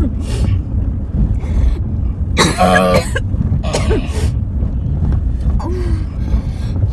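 A person coughing in short, sudden bursts over the steady low road noise inside a moving car's cabin.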